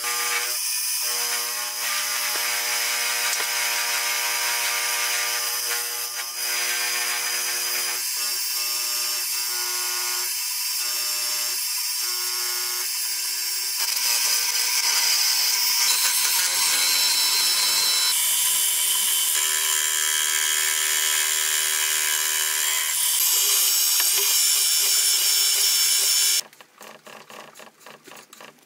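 Sieg X2.7 mini mill running, its end mill cutting aluminium: a steady motor whine with cutting hiss, changing to a louder cut about halfway through. Near the end it gives way to a quieter, quick run of clicks.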